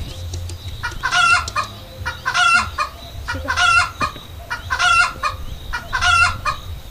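A chicken calling five times in a steady series, one short call about every second and a quarter.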